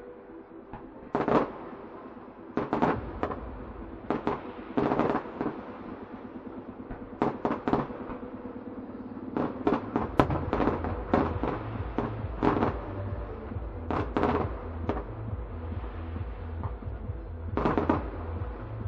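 Fireworks bursting in a display: a run of sharp bangs and crackles at uneven intervals. Music plays underneath, with steady held tones, and a bass beat comes in about halfway through.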